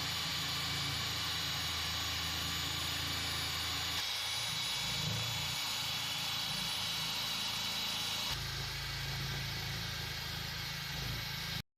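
Electric power tool running steadily under load, a high motor whine over an even hiss. The sound shifts slightly twice and cuts off abruptly just before the end.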